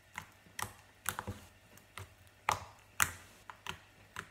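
Red slime being pressed and poked with fingertips on a table, making irregular sharp sticky clicks and pops, about two a second, the loudest pair around two and a half and three seconds in.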